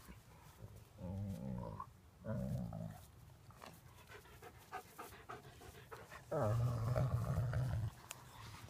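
Husky-type dogs making wavering vocal calls as they play-wrestle: a short call about a second in, another soon after, and a longer, louder one near the end.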